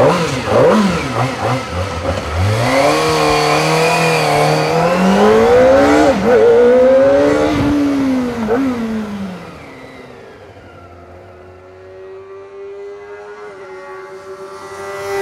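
Kawasaki Ninja ZX-25R's 250 cc inline-four engine being revved: the pitch climbs, holds high and falls back over about nine seconds, then it settles into a quieter, steadier note.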